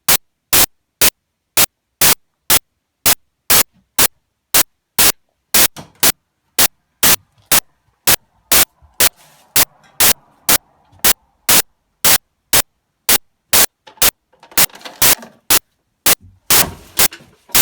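Sharp clicks repeating evenly about twice a second, with the sound cutting out almost fully between them: a recording glitch, not a sound in the room. Faint noise shows between the clicks now and then.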